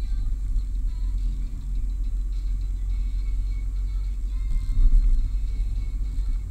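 Steady low rumble of a car's engine and tyres heard from inside the cabin while driving, with a brief louder swell about five seconds in.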